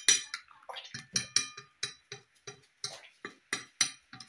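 A utensil stirring and scraping a wet spice paste around a paper plate in quick, regular strokes, about four a second.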